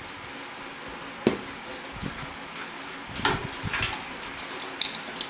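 Scattered light clicks and knocks from computer parts and screws being handled while a desktop system unit is taken apart. The loudest comes about a second in, with a cluster of them around three seconds in and another near the end.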